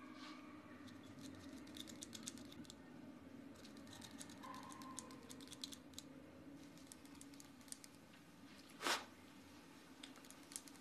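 Hair-cutting scissors snipping in quick runs of faint clicks, with a short, louder rush of noise just under nine seconds in.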